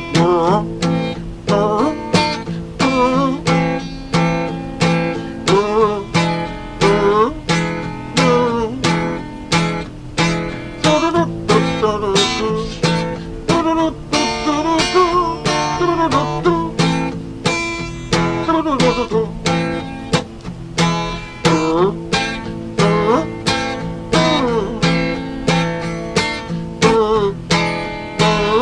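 Acoustic guitar music: strummed chords on a steady beat of about two strokes a second, with a melody line that slides and wavers in pitch over them.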